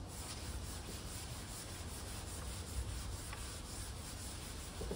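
Hand sanding a primed panel with a sanding pad: steady back-and-forth rubbing strokes. The primer is being scuffed to give the surface a little tooth for the next coat.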